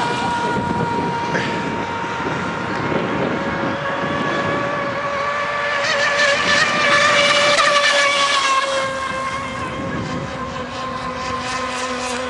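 Engines of radio-controlled model racing boats running at speed, several at once. The sound swells as one boat passes close by about six to eight and a half seconds in, then fades as it moves away.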